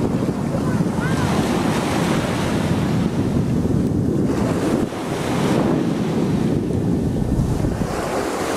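Small surf breaking and washing in over the shallows, the hiss swelling and falling with each wave, over a steady rumble of wind on the microphone.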